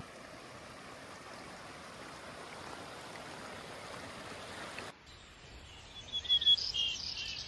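Running stream water as a steady rush. About five seconds in it cuts to a quieter outdoor background, and small birds chirp over it, short high calls repeated for the last second or two.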